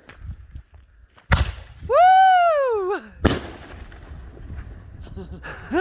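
Single-shot firework: a sharp launch bang, then a loud high wailing tone that falls away, then the burst bang about three seconds in, followed by a couple of seconds of crackle.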